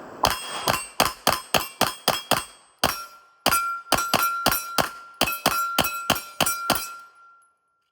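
Rapid pistol fire, about twenty shots in two quick strings, with a metallic ringing carrying on between shots and fading out after the last one, as from struck steel targets.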